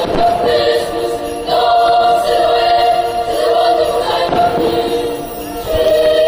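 Choral music with sustained sung notes over an orchestral backing, with a few faint firework bangs.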